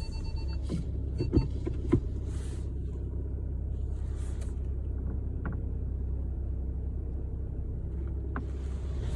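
Skoda Octavia vRS Mk3 idling steadily while it creeps along on full steering lock, with a few sharp creaks from the driver's-side front: the annoying full-lock creak. The loudest creaks come about a second and a half in and again at two seconds.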